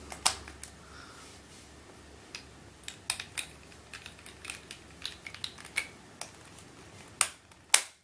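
Shengshou 3x3 speed cube being turned by hand, its plastic layers clicking in quick, irregular turns, with two louder clacks near the end. The cube is factory-lubed and still stiff.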